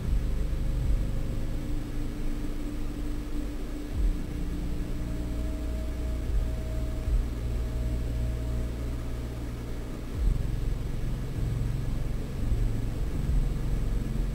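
A steady low rumble with a faint hiss over it and a thin, steady hum for part of the time; the rumble dips briefly and picks up again about ten seconds in.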